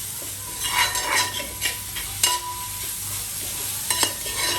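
Onion masala sizzling in a frying pan while a spoon stirs and scrapes it, with a few sharp clinks of the spoon against the pan.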